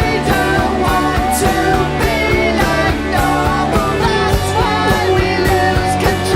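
Glam rock band playing an instrumental passage: electric guitars over bass and a steady drum beat.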